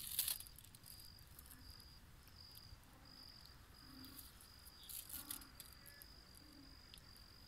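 Faint insect chirping: a short, high chirp repeating about twice a second. A brief rustle comes about five seconds in.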